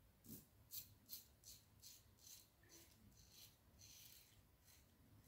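Faint, short scrapes of a Laugar skogsrå double-edge safety razor cutting stubble through lather, about ten strokes at a steady pace of two to three a second, growing softer and more spaced out toward the end.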